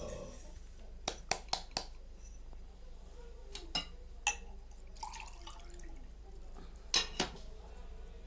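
Kitchen clinks and knocks as a glass of sugar is tipped into a cooking pot for syrup: a quick run of sharp clicks about a second in, two more in the middle and a pair near the end, with a soft pouring hiss between them.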